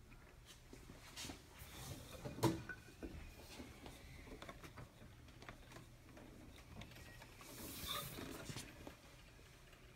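Faint handling sounds of parts being fitted inside a stainless steel freezer barrel: scattered small clicks and knocks, a sharper knock about two and a half seconds in, and a brief rustle near eight seconds.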